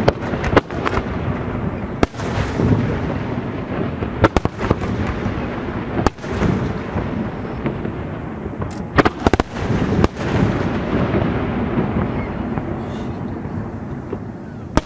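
Aerial fireworks shells bursting one after another: sharp booms every second or two over a continuous low rolling rumble, with a rapid cluster of several reports about nine seconds in.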